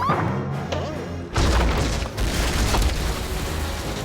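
Cartoon soundtrack music with a sudden loud boom-like sound effect about a second and a half in, followed by a dense rushing noise.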